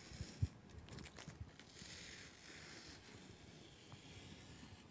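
Masking tape being peeled off watercolour paper: faint rasping and rustling, with a low thump about half a second in.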